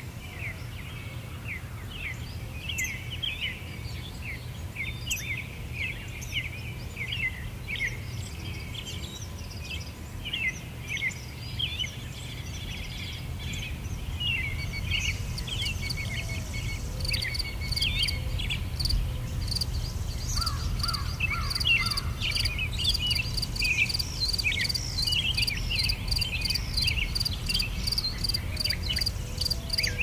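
Nature ambience: small birds chirping in quick repeated calls over a low background rumble. About halfway in, a steady pulsing chirping of insects joins and grows louder.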